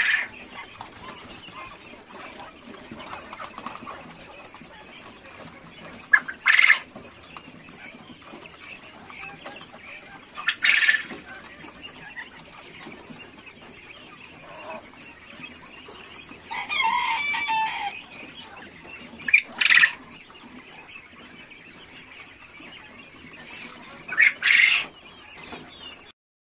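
Coturnix quail calling from their cages: six loud, short calls spread through, one of them longer and lower, over a steady background of quieter chirping and rustling from the flock.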